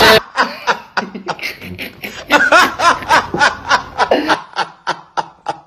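A man laughing in quick, repeated giggling bursts that thin out about four and a half seconds in.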